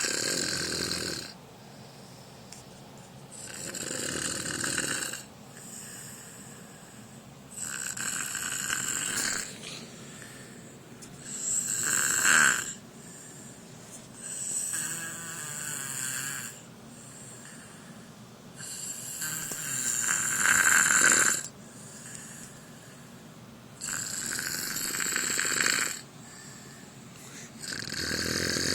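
Snoring in a steady rhythm, one snore about every four seconds, a few of them louder than the rest.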